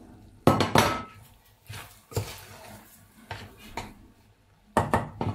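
Kitchenware knocks: a glass dish is set down on a ceramic hob with a couple of loud clacks about half a second in. A metal spoon then clinks and scrapes in a stainless-steel pot, with another quick cluster of knocks near the end.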